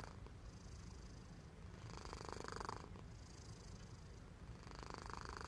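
Domestic cat snoring in its sleep: two soft, breathy snores about three seconds apart over a steady low rumble.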